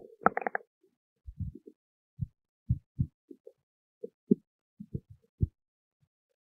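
A person's stomach growling: a short gurgle at the start, then a string of brief, low gurgling blips and pops at uneven intervals that stop about a second before the end.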